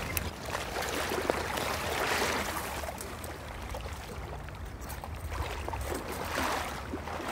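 Footsteps wading through shallow floodwater and dry grass: sloshing and rustling in uneven swells, with scattered small snaps.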